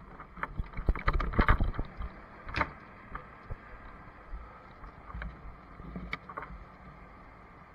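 Knocks and thuds of a firefighter getting down from a fire engine's cab and stepping to its pump panel: a close cluster from about half a second in to near three seconds, then a few scattered single knocks.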